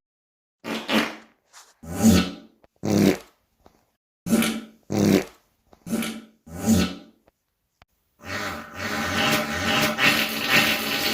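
A person farting: about seven short farts in quick succession, then one long fart of about three seconds starting about eight seconds in.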